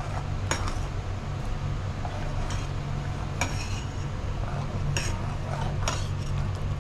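A steel ladle stirs sambar in a pressure cooker, scraping through the thick liquid and clinking against the metal pot several times, over a steady low hum.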